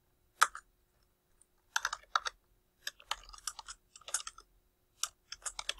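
Keys clicking on a computer keyboard, typed in short irregular bursts with pauses between them.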